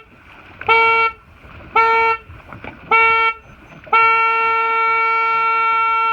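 Race committee starting horn counting down the final seconds of a sailboat race start: three short blasts about a second apart, then one long held blast about four seconds in that signals the start.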